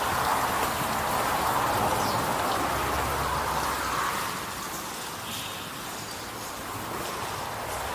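Splashing water from a garden fountain, a steady rain-like hiss that eases off after about four seconds.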